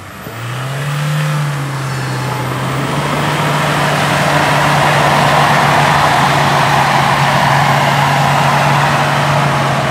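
Land Rover Defender's engine revving up about half a second in, then held at steady raised revs under load, with a broad rush of noise, as the 4x4 works along a deep muddy rut.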